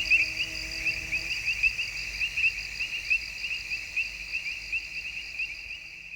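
Insects chirping steadily in a wetland chorus, about three or four chirps a second, fading out near the end.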